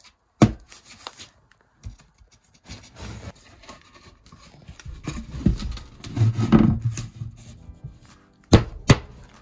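Scuffing and rubbing on OSB attic floor panels, with a sharp knock about half a second in and two more near the end.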